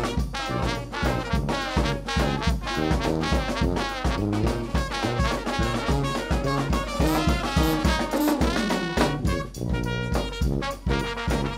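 New Orleans brass band playing live: trumpet, trombone and saxophone over sousaphone, bass drum and snare drum, with a steady beat.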